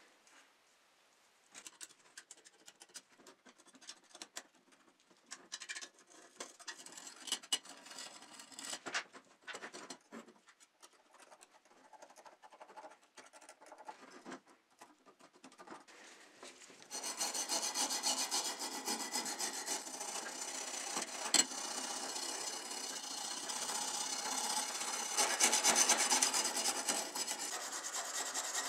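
A thin blade scraping flaking paint and rust off a metal model car body in short, irregular scratching strokes. About seventeen seconds in, a wire brush takes over, scrubbing the body in a louder, continuous rasping rub.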